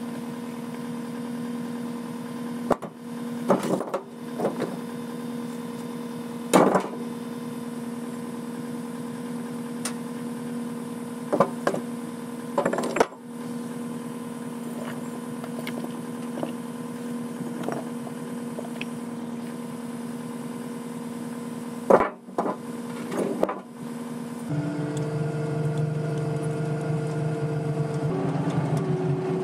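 A heavy machine's engine runs steadily, with scattered sharp knocks and clanks over it. About twenty-four seconds in, the engine note drops and gets fuller.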